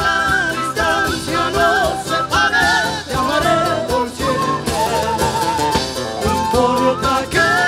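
Live band music played loud through a PA, with electric guitars and singing over a steady beat.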